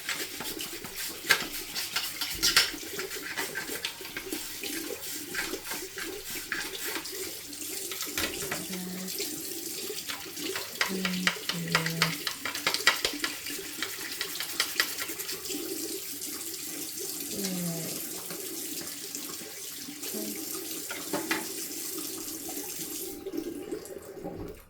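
Tap water running into a sink over a plastic washing-machine detergent drawer, with the clicks and scrapes of a toothbrush scrubbing it. The tap is shut off near the end and the water stops suddenly.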